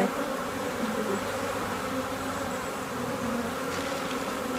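Steady buzzing of a swarm of honeybees flying loose around an open hive box.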